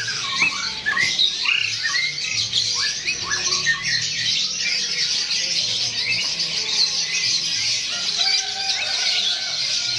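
A chorus of many caged birds, canaries among them, chirping and squawking over one another without a break. Quick falling chirps cluster in the first few seconds.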